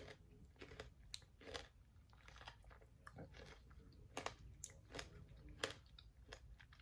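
Faint chewing of a mouthful of fruit cereal, with soft, irregular crunches from the pomegranate seeds.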